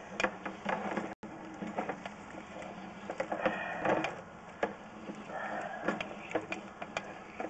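Sewer inspection camera's push cable being fed into the drain line, with irregular clicks and rattles. The camera head is submerged in a belly, a sag in the pipe that holds standing water.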